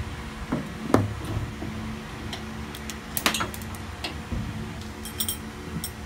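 Homemade steel gate latch of angle bar and flat bar being worked by hand: a few sharp metal clinks and clacks, the loudest about a second in and another cluster about three seconds in, over a faint steady hum.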